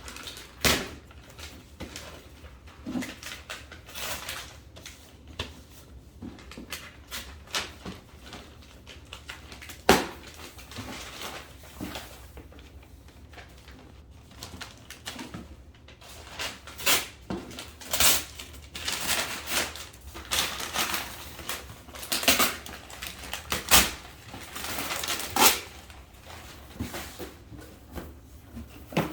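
Wrapping paper being ripped off a gift box as it is handled: irregular crinkles, tears and light knocks, growing busier about halfway through.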